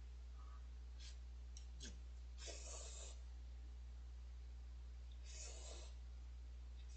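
Instant ramen noodles slurped from a bowl twice, short noisy sucks about three seconds apart, with a few faint clicks before the first. A steady low hum runs underneath.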